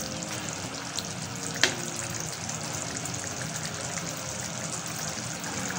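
Thin whole-masoor lentil curry simmering and sizzling in a metal pot while a wooden spatula stirs through it, with a sharp knock of the spatula about a second and a half in.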